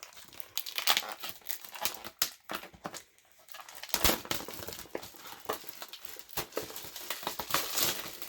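Plastic shrink wrap crinkling and tearing as it is pulled off a craft kit box, with a dense run of irregular crackles and rustles.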